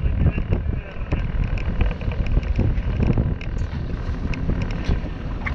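Boat motor running at sea, a steady low rumble with wind buffeting the microphone in gusts and a few faint clicks.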